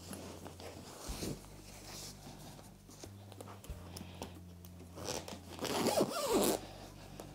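Zipper on a fabric seat-cushion cover being pulled along in short pulls, loudest from about five seconds in, with fabric rustling as the cushion is handled.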